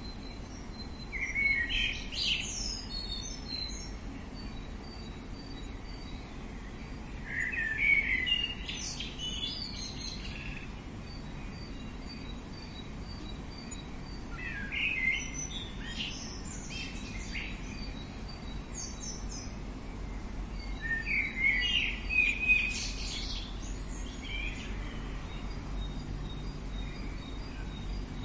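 A songbird singing short bursts of quick chirps, one phrase every five to seven seconds, over a steady outdoor background with a faint, high, evenly repeated note between the phrases.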